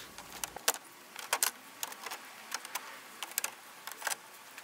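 Plastic push-clip poppers being prised out of a Toyota Hilux's black plastic cover plate with a trim tool: a run of irregular sharp plastic clicks and snaps.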